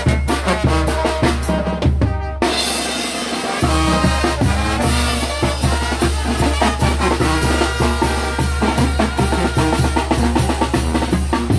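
Mixtec brass band playing a chilena, with brass over bass drum and snare keeping a steady beat. About two and a half seconds in the bass drops out for about a second, then the full band comes back in.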